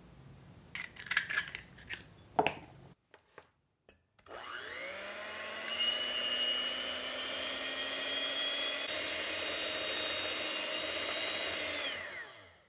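Electric hand mixer whisking an egg white in a glass bowl, the first stage of a meringue: it spins up about four seconds in with a rising whine, runs steadily, then winds down near the end. Before it, a few sharp clicks of eggshell as the egg is separated.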